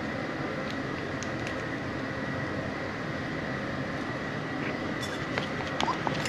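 Cake batter being stirred by hand with a whisk in a bowl: steady stirring noise with scattered small clicks, and a few sharper clinks of the whisk against the bowl near the end.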